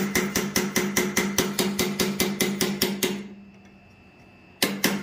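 Hammer blows on a ball punch driving a line into hot steel, a fast, even run of ringing strikes at about four to five a second. The blows stop about three seconds in and start again near the end, with a faint steady hum underneath.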